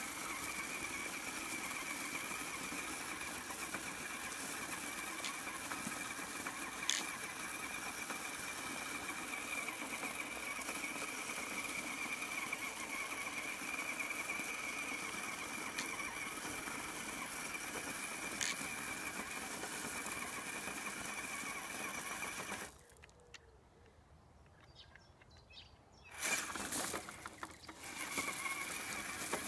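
Axial SCX10 RC crawler's electric motor and gearbox whining steadily at a high pitch as the truck crawls slowly over gravel, with two sharp clicks along the way. The whine cuts out for about three seconds near the end, then comes back with a louder, noisier burst before settling again.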